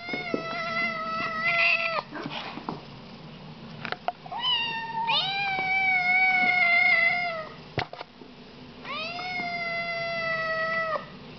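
Siamese kittens meowing loudly: long, drawn-out meows of about two seconds each, three in all, with a short one just before the second. Each slides up in pitch at the start and then holds steady.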